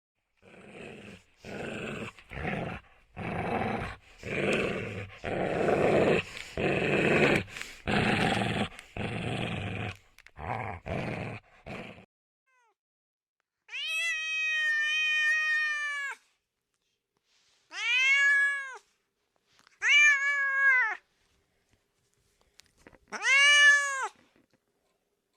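A run of short, rough growling calls in quick succession for about twelve seconds, then a domestic cat meowing four times, each meow a drawn-out call that rises and falls in pitch.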